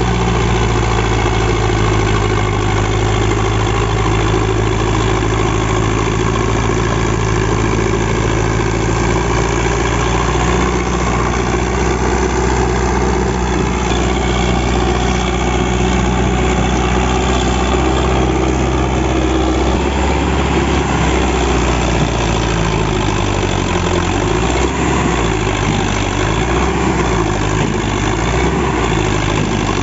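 Sonalika DI 750 III tractor's diesel engine running steadily as it pulls a loaded trolley through soft, muddy ground. Its note starts wavering up and down about twenty seconds in.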